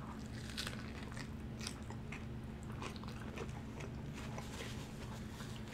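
A person biting into and chewing a lettuce-wrapped (protein style) burger: crisp lettuce crunching and many short chewing clicks, with a low steady hum underneath.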